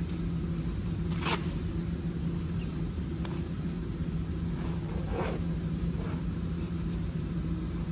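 Heavy waterproof drysuit zipper being pulled open in a few short rasping strokes, the clearest about a second in and about five seconds in, over a steady low hum.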